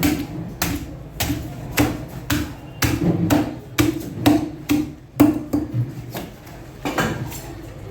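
A heavy knife chopping through a fish onto a wooden block, in steady strokes about two a second that pause briefly near the end.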